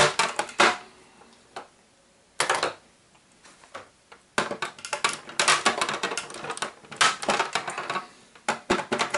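Plastic clips and casing inside an inkjet printer clicking and rattling as they are pried and worked loose with a tool, freeing the power supply unit. Quick runs of sharp clicks, a single burst about two and a half seconds in, then a longer clattering run from about four and a half seconds on.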